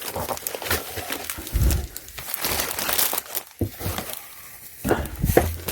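Packaging crinkling and rustling in bursts as a canvas tote bag is unwrapped by hand, with a quieter pause about four seconds in.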